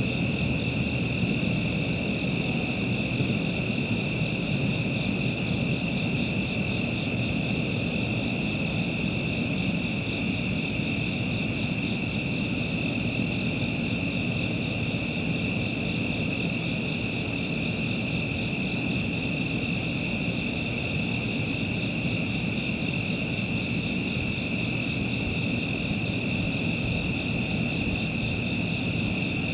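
Night insect chorus, crickets and katydids trilling continuously at several high pitches, over a low steady rumble.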